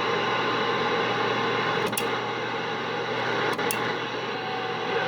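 CB radio receiver hissing with static on an open channel between transmissions, a low steady hum underneath, with two short clicks about two and three and a half seconds in.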